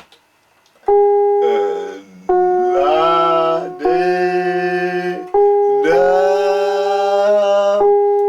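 A keyboard plays a series of held notes, starting about a second in, while a voice sings along and slides up into each pitch, as in a singing or pitch-matching exercise.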